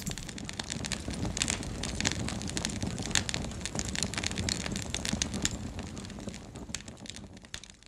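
Wood fire crackling: irregular sharp pops and snaps over a low rumble of burning, fading out near the end.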